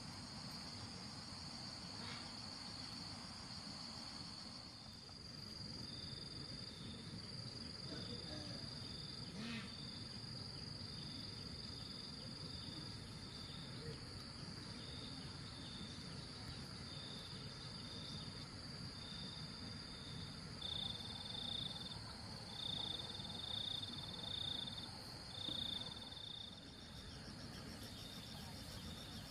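Insects calling: one steady high trill, and a second insect in short repeated chirps about once a second, louder in the second half.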